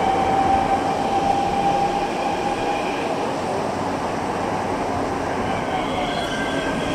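Mexico City Metro train running, heard from inside the car: a steady rumble with a held whine that fades out about three seconds in, and new higher whining tones rising in near the end.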